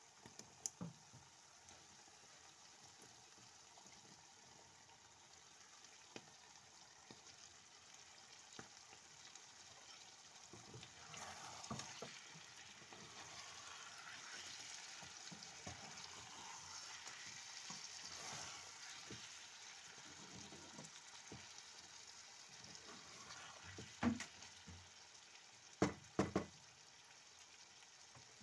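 Diced potatoes and chickpeas sizzling faintly in a frying pan while being stirred with a wooden spatula, with a few small clicks as the chickpeas are tipped in at the start. The sizzling grows louder partway through, and a few sharp knocks come near the end.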